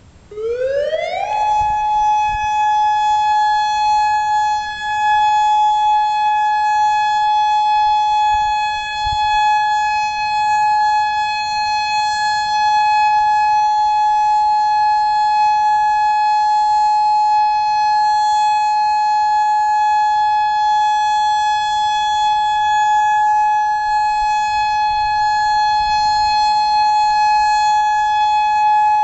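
Federal Signal Modulator 6024 electronic siren sounding its alert signal: the tone rises quickly for about a second, then holds one loud, steady pitch with a ladder of overtones. About eight seconds in, a faint second siren winds up beneath it and levels off: a distant Federal Signal 2001-130.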